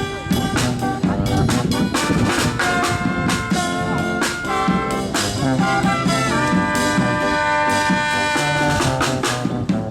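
Instrumental music with brass-like held notes and chords over a steady drum beat.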